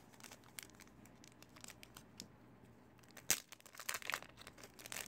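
Thin clear plastic wrapping around a stack of trading cards crinkling and tearing as it is pulled off by hand. Scattered crackles run throughout, with a sharp snap about three seconds in and a burst of crinkling just after.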